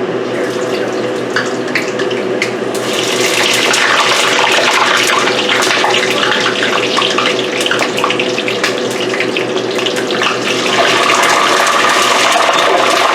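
Water running steadily from a kitchen faucet into a sink, louder from about three seconds in and again near the end, over a steady low hum.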